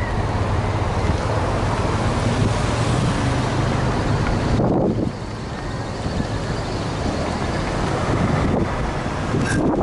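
Slow-moving road traffic passing close by, a line of cars, SUVs and pickups with their engines running and tyres rolling, and wind buffeting the microphone. A low engine hum runs through the first half, and a vehicle passes with a falling sound about halfway through.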